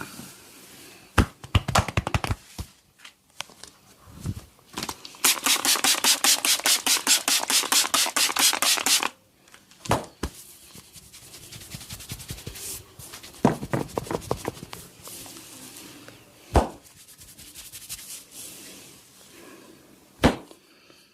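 Massage by a barber's hands: a short cluster of quick strikes about a second in, then a fast, even run of percussive hand strikes at about six a second for around four seconds, followed by scattered single sharp slaps and snaps.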